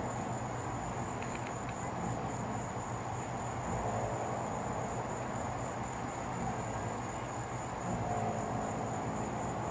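Crickets trilling in one unbroken high note over a steady low hum and faint hiss.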